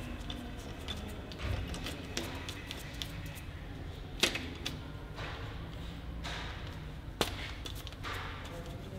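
Cylinder head bolts being unscrewed from a Peugeot 309 GTI 1.9 engine's aluminium cylinder head with hand tools: scattered light metal ticks and handling noises, with two sharp clicks about four and seven seconds in.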